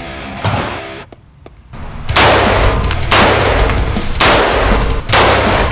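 Sig Sauer M400 Sport semi-automatic rifle firing four shots about a second apart, starting about two seconds in, each shot echoing in the indoor range.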